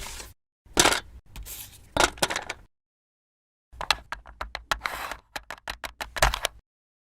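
Short, edited bursts of clicking and scraping, cut apart by dead silence, then a quick run of sharp clicks from about four seconds in.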